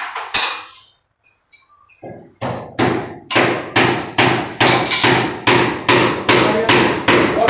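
A hammer striking hard. There are two blows, then after a short pause a steady run of blows at about three a second, each ringing briefly.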